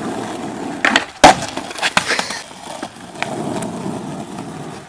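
Skateboard wheels rolling on rough asphalt, broken about a second in by a few sharp wooden clacks of the board's tail popping and the board hitting the ground, then rolling on.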